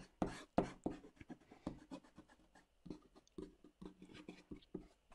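Kneaded eraser rubbing over watercolour paper to lift pencil lines: a faint run of short, irregular scrubbing strokes, several a second, that stop near the end.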